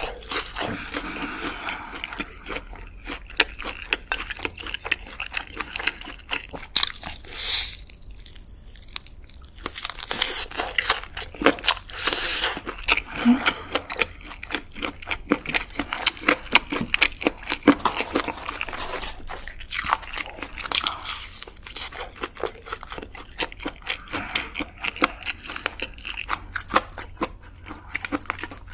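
Close-miked eating: repeated bites and steady chewing with crunching, heard as a dense run of small, irregular crackles and clicks.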